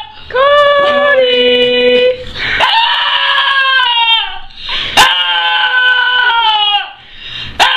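Small fluffy white dog howling with its head raised: three long drawn-out howls, each sliding down in pitch at the end. A sharp click sounds about five seconds in.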